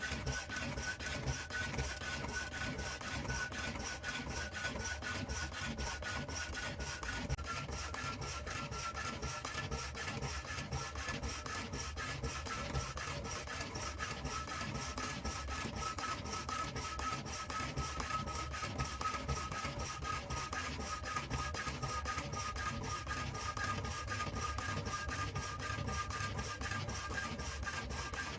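Homemade power hacksaw driven by a washing-machine electric motor, its blade sawing back and forth in a fast, even rasping rhythm. A steady motor whine runs underneath and slowly sinks in pitch.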